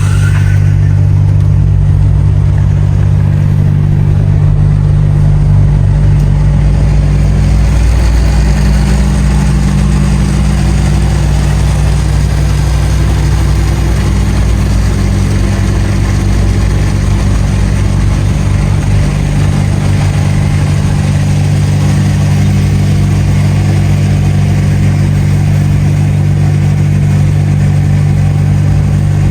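DAF XF truck's diesel engine running steadily at cruising speed, with a constant low hum under road and tyre noise.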